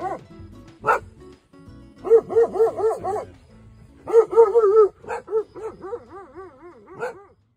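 Street dog barking in quick bouts of short, pitched barks, about four or five a second. A fainter run of barks near the end cuts off suddenly. A single sharp knock comes about a second in.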